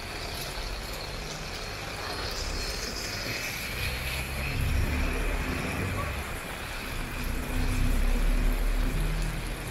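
Motor vehicle traffic on a rain-wet city street: a low engine rumble swells about halfway through and again, loudest, near the end, over a steady hiss of rain.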